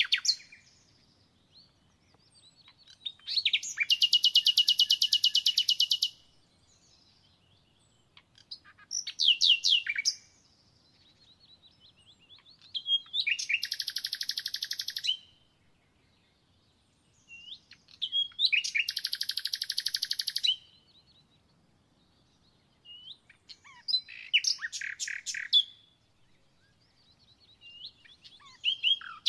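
A songbird singing the same song again and again: each phrase is a fast, high, rattling trill about two to three seconds long, repeated about every five seconds, with faint chirps between.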